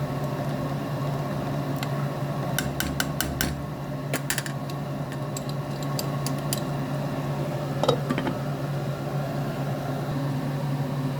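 A steady low mechanical hum, like a kitchen fan or appliance, runs under a few light clicks of a utensil against a cooking pan, with one sharper knock about eight seconds in.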